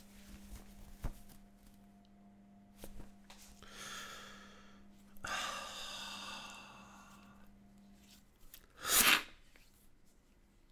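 A man crying: a short pitched sob about four seconds in, a longer sob right after it, then a loud sharp breath near the end.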